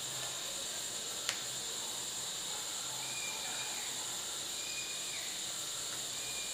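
Steady low-level high-pitched hiss of background noise, with one sharp click about a second in and a few short faint high tones in the second half.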